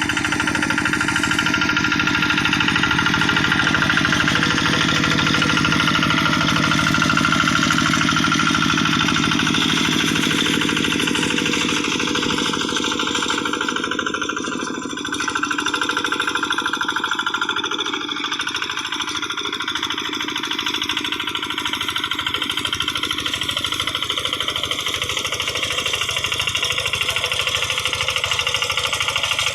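Kubota RD85Di single-cylinder diesel engine of a hand tractor running steadily with a rapid knocking beat. Its low end thins out about twelve seconds in, with a brief dip in level a few seconds later.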